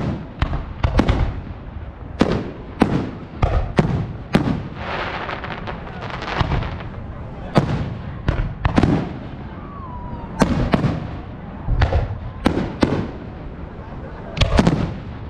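Aerial firework shells bursting in quick irregular succession: sharp bangs, often less than a second apart, some followed by a spell of crackling.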